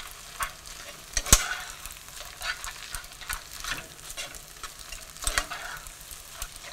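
Metal spoon stirring creamy orzo pasta in a nonstick skillet on a gas stove: irregular wet scrapes and clicks of the spoon against the pan, with a soft sizzle underneath. One sharper clack about a second and a half in.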